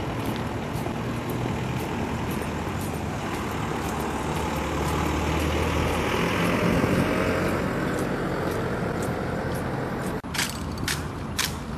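Road traffic: a steady low hum, with a heavy vehicle's engine rumble swelling and fading about halfway through. Faint regular clicks run under it, and a few sharp clicks come near the end.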